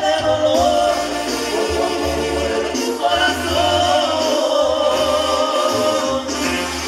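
Live Mexican banda music: long held melody notes with a slight waver over a pulsing low bass, with singing.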